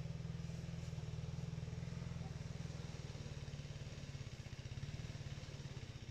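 An engine running steadily: a low, even hum with a fast pulse.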